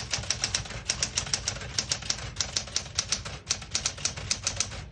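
1974 Smith-Corona Galaxie Twelve manual portable typewriter being typed on at a steady pace: a quick run of sharp key strikes, several a second, the typebars hitting the platen.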